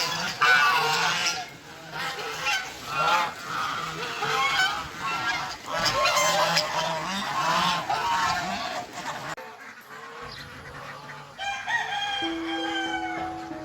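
A flock of geese honking over one another, with other poultry calls mixed in. The calls cut off about nine seconds in, and soft music begins near the end.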